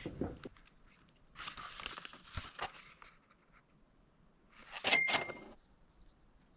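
Plastic lure packaging crinkling and rustling as it is handled, with a few light clicks. About five seconds in comes a louder, sharper clatter with a brief ring.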